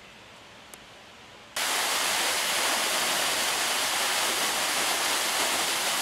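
Faint outdoor background, then about a second and a half in, the loud steady rush and splash of a tall fountain jet starts abruptly.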